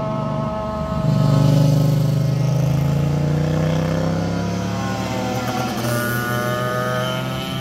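Motorcycle engines passing on a winding road. About a second in, a louder engine note takes over and holds steady. Near the end, engine notes slide as bikes pass, one falling in pitch and another rising.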